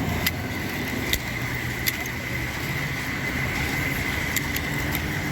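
Street traffic: a car engine runs close by with a steady low rumble, and a few sharp ticks sound over it.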